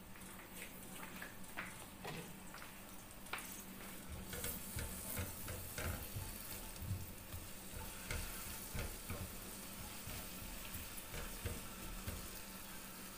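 Sliced garlic and green chillies sizzling in a little oil in a nonstick frying pan, stirred with a silicone spatula that scrapes and knocks against the pan. The stirring gets busier about four seconds in.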